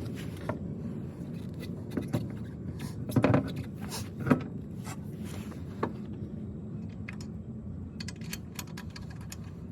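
Clunks and scrapes of a car wheel and spare tire being handled, with a louder clunk about three seconds in and a run of small metallic clinks near the end, over a steady low hum.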